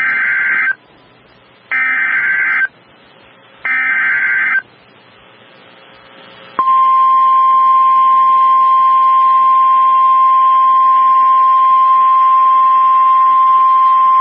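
Emergency Alert System / NOAA Weather Radio SAME header: three buzzing digital data bursts of about a second each, with short gaps between them, the first already underway. About six and a half seconds in, the steady single-pitch 1050 Hz weather-radio warning alarm tone starts and holds.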